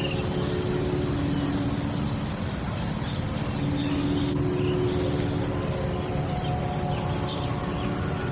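Outdoor ambience: a steady high-pitched insect drone over a constant low rumble of background noise.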